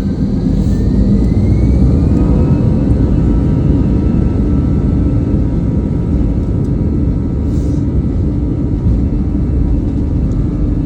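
Airbus A320 jet engines running with a loud, steady rumble. A thin whine rises in pitch over the first two or three seconds as the engines spool up for takeoff.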